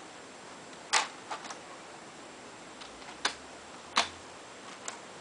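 A handful of sharp, separate plastic clicks and taps from handling the laptop's screen bezel and lid, the loudest about a second in and again about four seconds in.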